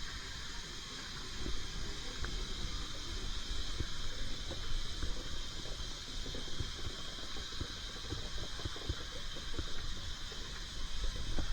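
Narrow-gauge steam train: a steady hiss over a low rumble, with scattered light knocks throughout.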